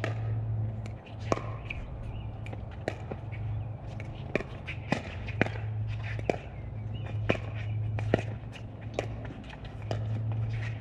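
Pickleball rally: sharp pops of paddles striking the plastic ball, about one a second and sometimes faster, with footsteps on the court, over a steady low hum.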